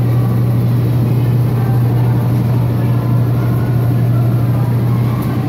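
Mold-A-Rama coin-operated souvenir machine running with a loud, steady low hum as it molds a hot-plastic figure.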